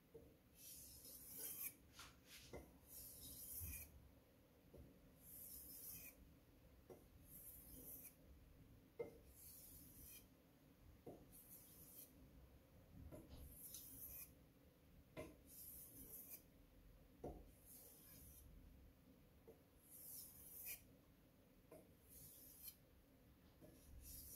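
Faint strokes of a Tojiro VG10 steel knife blade drawn across an Arashiyama #6000 grit finishing whetstone, a soft scraping hiss roughly every two seconds.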